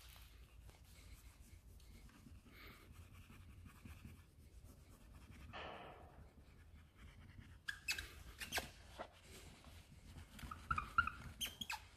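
Microfiber towel rubbing polish into an alloy wheel by hand: faint scrubbing and swishing, with light clicks and scrapes that come more often from about halfway in.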